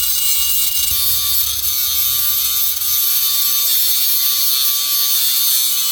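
A power tool scouring metal, a steady harsh hiss: the rusty exhaust pipe being cleaned up for welding.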